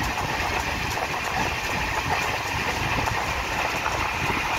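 Passenger train running at speed, heard from inside the coach: a steady noise of wheels on the track with faint clicks.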